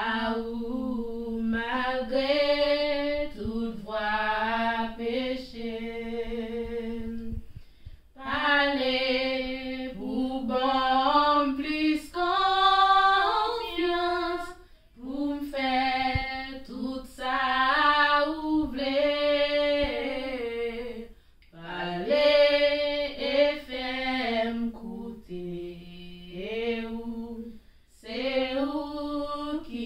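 Two women singing a gospel hymn of praise a cappella, in long held phrases with brief pauses between.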